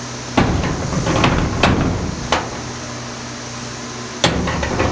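Old steel blacksmith tongs clanking against one another and against the rebar rack as they are hung up: a run of metal clinks and clanks over the first two and a half seconds, and another clank about four seconds in. A steady low hum runs underneath.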